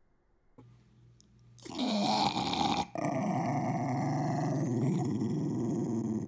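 Small dog growling in a long, drawn-out grumble that wavers in pitch, starting about two seconds in after a quiet opening, with a brief break about three seconds in.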